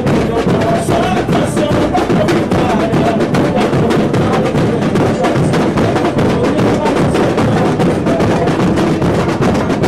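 A samba school bateria (drum section) playing live: many drums beaten with sticks in a dense, fast, continuous samba rhythm.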